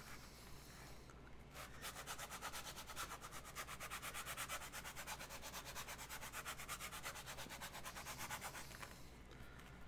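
Abrasive rubbed quickly back and forth by hand against the inside of costume foam, about five scraping strokes a second, starting about a second and a half in and stopping near the end. The abrasive is too fine to tear the foam away quickly.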